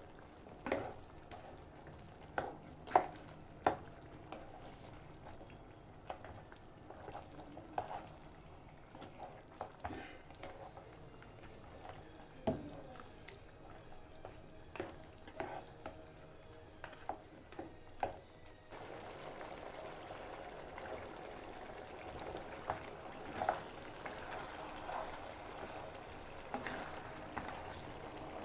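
Oxtail stew simmering in a nonstick frying pan while a cooking spoon stirs it: scattered knocks and scrapes of the spoon against the pan over a soft sizzle of the sauce. The steady background sizzle gets louder about two-thirds of the way through.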